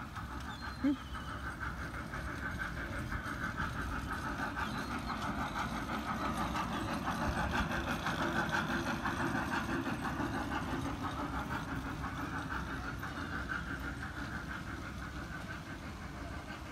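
Kids' trackless park train driving along a paved path, its motor giving a steady drone that grows louder as it passes close about halfway through, then fades as it moves away.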